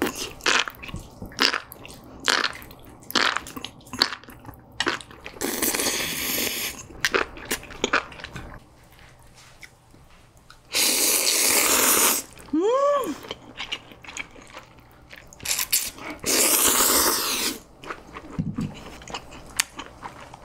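Close-miked eating sounds of a person eating spicy noodles: three long, loud slurps, each about a second and a half, with wet chewing and smacking clicks in between.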